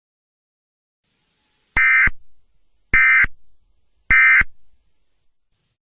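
Three short bursts of Emergency Alert System SAME digital data tones, each about a third of a second long and about a second apart. This is the End of Message (NNNN) signal that closes an EAS alert.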